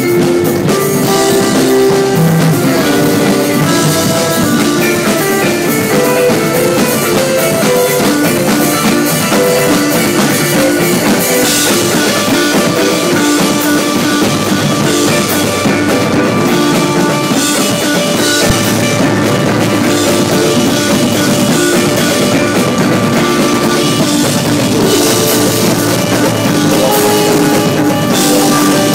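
A live rock band playing loud: drum kit with guitars and keyboard playing a busy riff of quick, changing notes.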